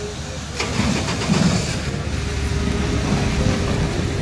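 Ram 3500's Cummins 6.7-litre inline-six turbo-diesel running under load as the truck pushes heavy slush with its snowplow: a steady low rumble that grows louder about half a second in.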